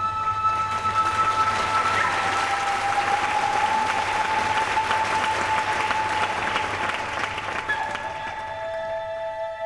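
An audience applauding over slow music with long held notes. The clapping swells in just after the start and fades out near the end while the music carries on.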